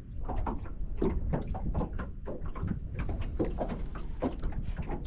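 Rapid, irregular light taps and clicks, several a second, over a steady low rumble of wind on the microphone.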